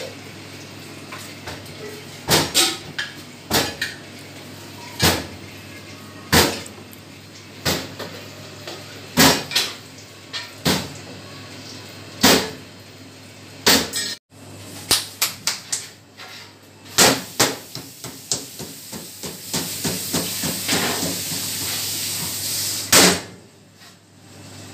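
Roti dough being slapped and patted by hand to flatten it, sharp slaps about every second, turning into quicker runs of slaps in the second half. A steady hiss rises for a few seconds near the end.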